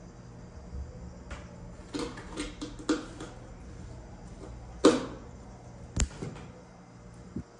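Cardboard box scraping and bumping on a tiled floor as a cat pushes its head and body into it: a cluster of rustles and scrapes, the loudest about five seconds in, then a sharp knock about a second later.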